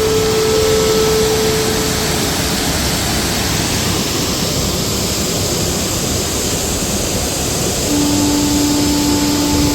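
Water rushing through the dam's spillway as a loud, even roar, with a few long steady tones held over it.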